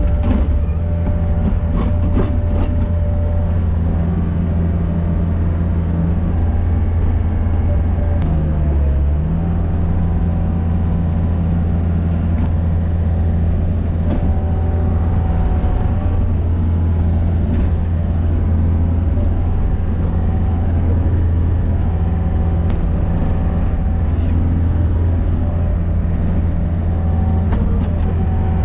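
Gehl RT65 tracked skid steer's diesel engine running steadily under load while pushing snow, briefly dropping in pitch about eight seconds in and picking back up.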